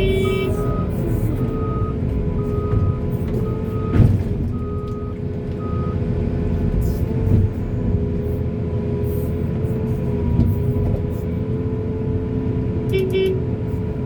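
Diesel construction machinery running steadily while a reversing alarm beeps about once every three-quarters of a second for the first six seconds. There is a single sharp clank about four seconds in.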